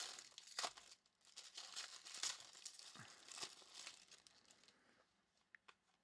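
Foil wrapper of a basketball trading card pack crinkling and tearing as it is ripped open by hand, in short, faint rustles over the first four seconds or so.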